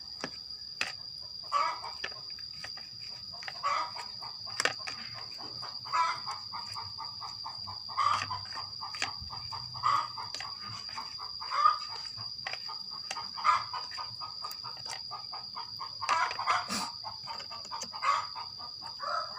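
A chicken clucking in short calls about every two seconds, over a steady high-pitched whine, with a few light clicks.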